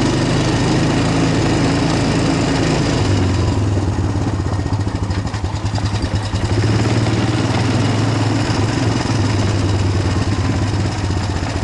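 Vehicle engine running steadily. Its note drops about three seconds in and turns rougher and pulsing for a few seconds before it evens out again.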